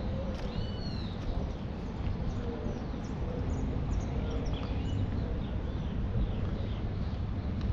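Several birds chirping with short, scattered calls, one a rising-then-falling call about half a second in, over a steady low background rumble.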